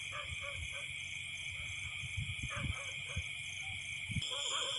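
Night chorus: a steady high insect trill with a regular pulsing chirp above it, and short repeated calls of frogs that come thicker about four seconds in. Low rustling thumps from handling near the microphone around the middle and again near the end.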